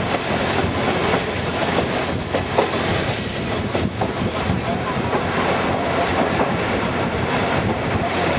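KiHa 48 diesel railcar running along the track, heard from inside its open-sided trolley car: a steady, loud rumble of wheels and engine mixed with rushing air, with a few clacks as the wheels cross rail joints.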